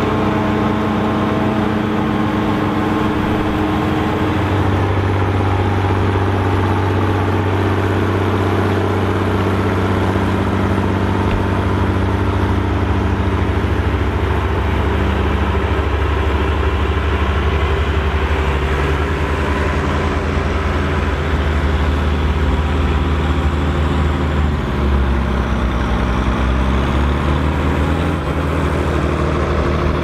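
Volvo BM tractor diesel engines running steadily under load, pulling tillage implements. The engine note changes about four seconds in and again past twenty seconds.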